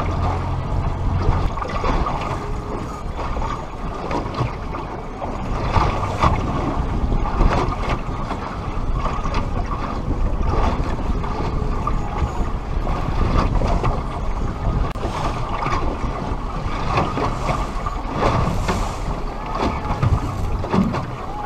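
Wind buffeting the microphone and water slapping against a small boat's hull, over a low engine hum that is strongest in the first second or two, with scattered knocks on the deck.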